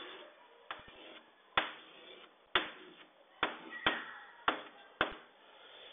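Chalk on a blackboard while lines are drawn: a string of about eight sharp taps, each with a brief scrape, spread irregularly over a few seconds.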